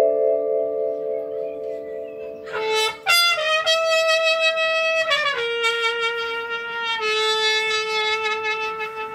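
Trumpet playing a slow melody of long held notes, coming in about two and a half seconds in over a sustained piano chord. The chord dies away about halfway through while the trumpet carries on alone.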